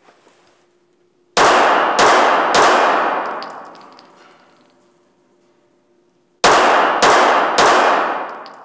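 Two strings of three pistol shots from a compact semi-automatic carry pistol, the shots about half a second apart and the two strings about five seconds apart. Each shot has a long echo off the walls of an indoor range.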